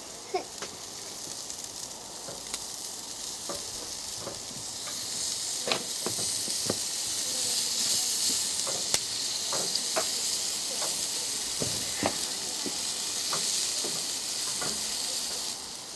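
Sausages, burgers and chicken sizzling on a barbecue grill: a steady hiss that grows louder about five seconds in, with scattered sharp pops and clicks.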